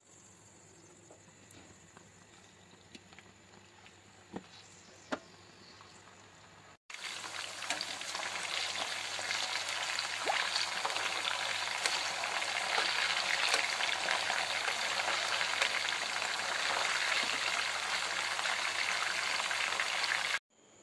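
Chicken tikka boti pieces on wooden skewers sizzling as they shallow-fry in oil in a frying pan, a dense crackling hiss that starts abruptly about seven seconds in and cuts off just before the end. Before it, only faint hiss and a few soft clicks.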